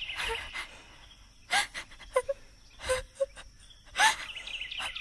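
A person's short, gasping breaths, as in crying, coming in several separate gasps over a few seconds.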